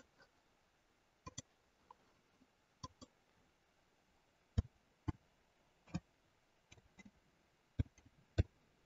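Computer mouse clicks and keyboard key presses, about a dozen short, separate clicks at an uneven pace.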